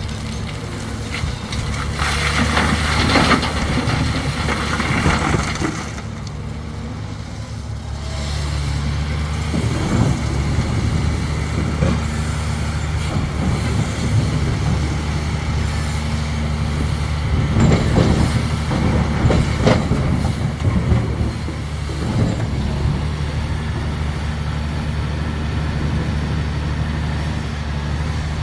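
Large diesel engine of a Caterpillar 374F hydraulic excavator running steadily under load, with louder stretches of grinding, scraping noise about two seconds in and again around seventeen to twenty seconds in.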